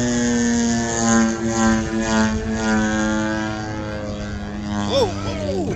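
Gas-powered RC airplane's two-stroke engine running steadily in flight, with small swells in loudness. About five seconds in, a person's short shouted exclamation cuts in over it.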